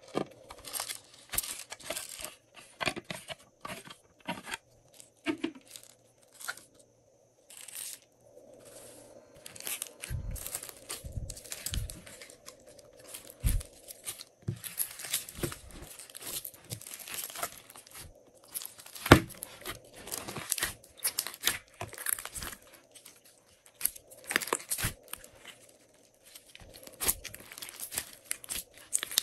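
Glossy slime being kneaded and stretched by hand, with rapid, irregular sticky crackles and pops. A few soft low thuds come a little after ten seconds in, when the slime is pressed or slapped down.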